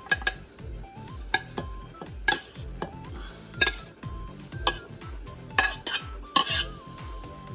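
A metal spoon clanking and scraping against stainless steel pots as steamed vegetables are tipped and scraped out of one pot into another, about seven sharp clanks at irregular intervals.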